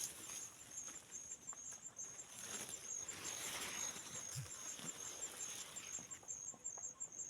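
An insect chirping in a steady rhythm of short, high pulses, about three a second, over faint rustling.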